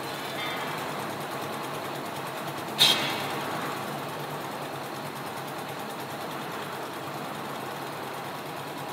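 Single-cylinder 10 hp diesel engine of a one-bag double-gear concrete mixer running steadily. About three seconds in there is one loud, sharp clank that rings briefly.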